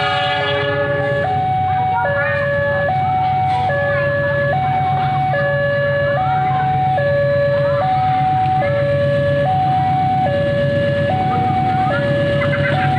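Railway level-crossing warning alarm sounding a steady two-tone signal, switching between a higher and a lower tone about every 0.8 s, the sign that a train is approaching. A steady low hum runs underneath.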